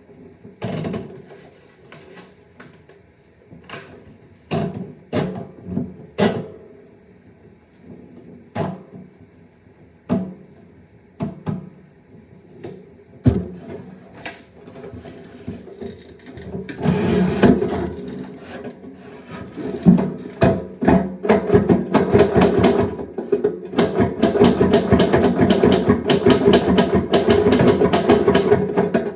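Typewriter keys being struck: scattered single keystrokes at first, then from about halfway in, fast continuous typing.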